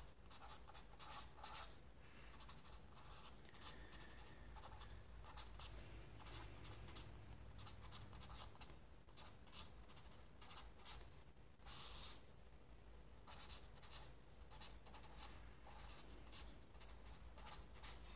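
Sharpie felt-tip marker writing on a paper legal pad: short, irregular scratching strokes, one louder stroke about twelve seconds in.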